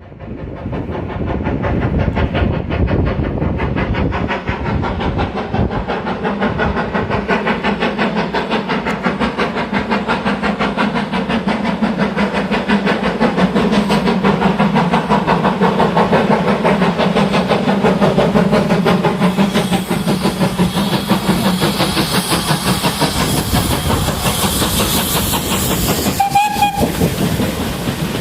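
Steam locomotive working a train, a continuous loud run of rapid beats and rail noise, with a brief whistle toot near the end.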